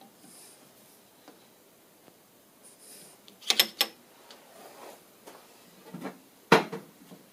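Sharp metal clanks and knocks from steel parallels and a steel workpiece being set into a rotary table's chuck. A quick cluster of clanks comes about three and a half seconds in, and the loudest single knock comes about six and a half seconds in.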